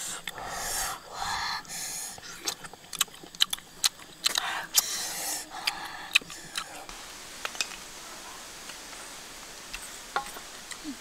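Food being worked by hand in a clay mortar of crushed chili sauce: irregular short wet scraping and squelching noises with small clicks. The noises stop after about seven seconds and only faint clicks follow.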